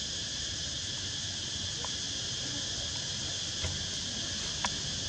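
Steady high-pitched insect chorus droning without a break, with two faint clicks about a second apart in the second half.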